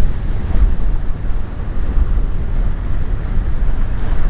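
Ocean surf on a beach, a steady rushing noise, with wind buffeting the microphone as a heavy low rumble.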